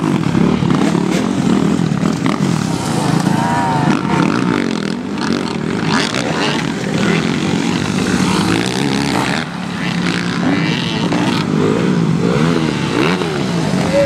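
Several dirt bike engines revving and running over the course, their pitch rising and falling repeatedly as the riders throttle on and off.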